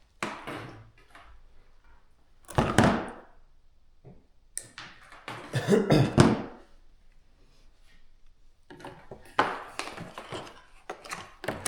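Handling noises of wire and tools: a string of separate rustles, scrapes and knocks, the loudest about three seconds and six seconds in.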